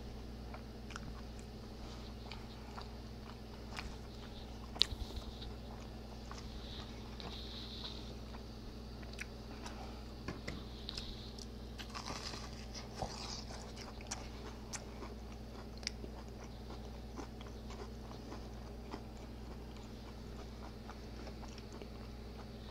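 Faint close-miked eating: biting into and chewing a deep-fried burrito with a crisp Hot Cheeto crust, small crunches and mouth clicks scattered throughout, with one sharper click about five seconds in.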